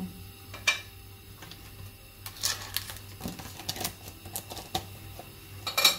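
A wooden spatula knocking and clattering against a stainless steel pan and plate: a sharp tap about a second in, a quick run of taps and clacks in the middle, and a loud cluster near the end.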